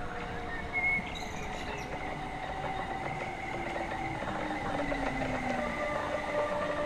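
Hamburg S-Bahn class 474 electric multiple unit pulling into the platform and braking. Its traction motors whine in slowly falling tones as it slows, and there is a brief high squeal about a second in.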